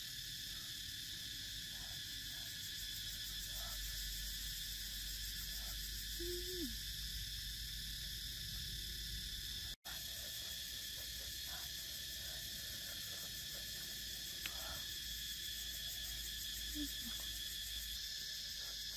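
Outdoor ambience of steady high insect buzzing, with a short, low, hoot-like animal call twice. The sound cuts out for an instant near the middle.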